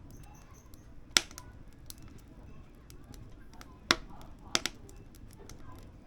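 Firewood crackling in a wood-burning stove: scattered faint ticks with sharp pops about a second in, just before four seconds and twice in quick succession around four and a half seconds, over a low steady noise.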